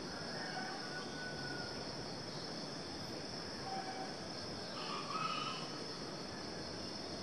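Tropical garden ambience: a steady high-pitched insect drone with a few short bird calls over it, the clearest about five seconds in.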